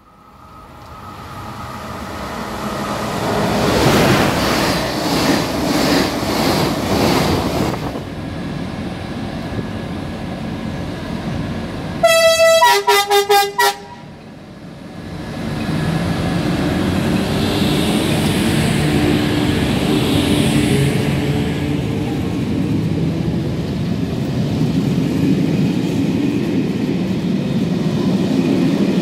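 A train runs past, its noise swelling over the first few seconds and then easing off. About twelve seconds in, a train horn gives a quick run of short toots. After that, an SNCB electric locomotive hauls a rake of passenger coaches along the platform: a steady rolling rumble with a motor whine that slowly rises in pitch as the train gathers speed.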